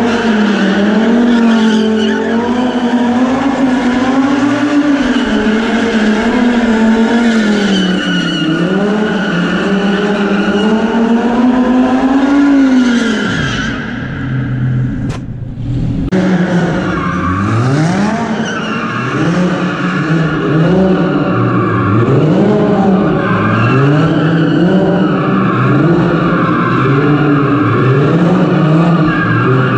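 Audi R8 V10 Plus's V10 engine held at high revs while the car spins donuts, with tyres squealing and scrubbing on concrete. About halfway through the engine note falls away and briefly dips. It then comes back in repeated rises and falls about every two seconds as the throttle is worked through the spins.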